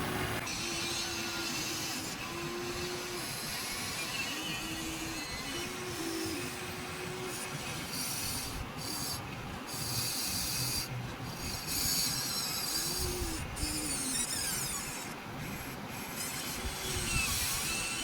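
Electric motors and plastic gearboxes of a Huina 1593 1/14-scale RC excavator whining in short runs, each run rising in pitch as it speeds up and falling as it stops, with a scraping, grinding rasp over it.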